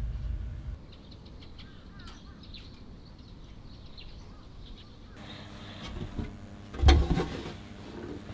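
Small birds chirping outdoors, then a loud single knock near the end.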